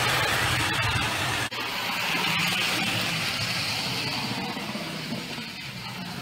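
Vintage Lionel O-gauge electric toy train running on its track: a steady running noise of wheels on the rails over a low motor hum. It cuts out for an instant about a second and a half in, then carries on a little quieter.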